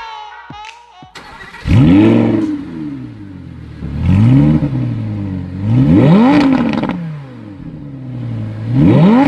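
Audi R8 V10 Plus's 5.2-litre V10 on its stock exhaust, free-revved four times at a standstill. Each rev climbs quickly in pitch and falls back to a steady idle, and the last rev starts near the end.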